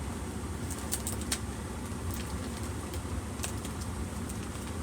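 Steady low rumble, with scattered light clicks and crinkles from a mailer package being handled as it is opened.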